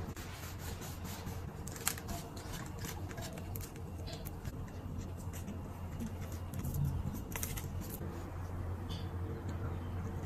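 Small clicks, taps and scrapes from handling cake-decorating tools and food, with a steady low hum underneath.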